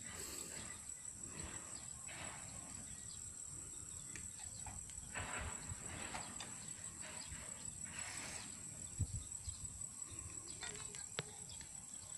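Steady high-pitched drone of insects, with short rustling hisses now and then over a low rumble, and a couple of thumps about nine seconds in.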